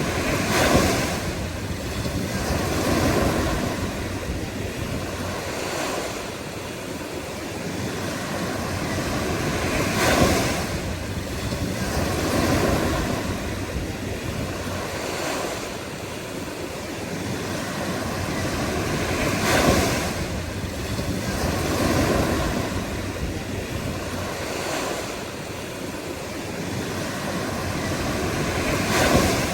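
Ocean waves breaking over a constant rush of surf. The loudest crashes come about every nine to ten seconds, with smaller surges between them.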